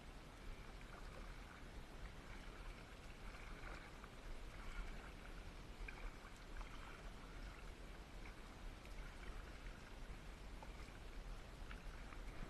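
Faint water sounds of a kayak being paddled: the paddle dipping and water splashing and dripping, with a couple of light clicks near the end.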